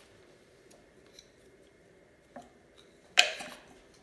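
A few faint clicks, then a sharp knock about three seconds in as a wooden spoon strikes the slow cooker's crock and starts stirring the meat and tomato sauce.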